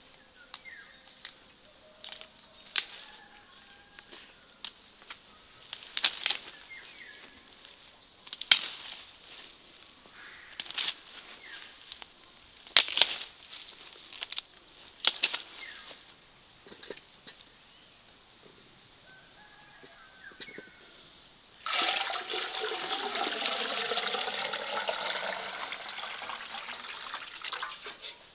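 Scattered sharp knocks and clicks at irregular intervals, with faint bird chirps. About 22 seconds in, water starts pouring and runs steadily for some six seconds.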